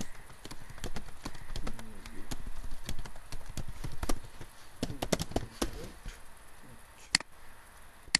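Computer keyboard typing: a quick, irregular run of key clicks through the first several seconds, then a single sharper mouse click about seven seconds in.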